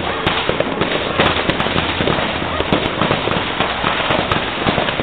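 Fireworks display going off: a dense, continuous run of sharp pops and crackling bangs.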